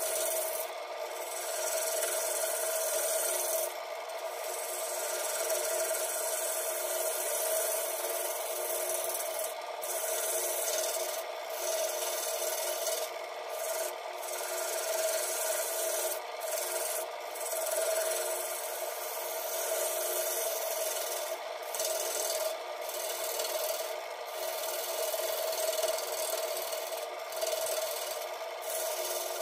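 Wood lathe spinning a black cherry bowl blank while a hand-held gouge cuts its outside: a continuous scraping hiss of the cut over a steady hum. The hiss drops out briefly now and then as the tool eases off the wood.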